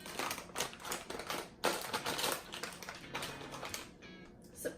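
Plastic potato chip bag crinkling as it is handled and opened: a dense run of quick crackles that dies away about a second before the end.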